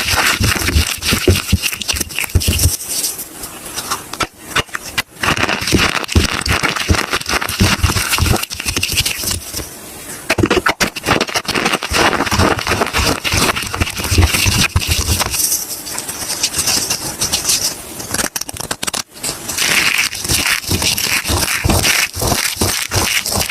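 Bar of soap being broken and crushed: a dense, continuous crunching crackle, with brief lulls about four, ten and nineteen seconds in.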